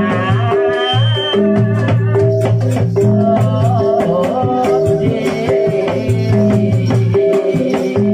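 Live kuda lumping (jaranan) music: drums and rattling percussion over held low tones that repeat in a steady pattern, with a wavering melody line near the start and again about three seconds in.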